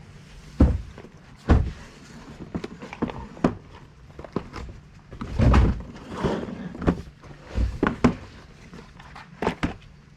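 A string of irregular thuds and knocks, with about half a dozen louder ones, as objects are moved and handled indoors, along with footsteps.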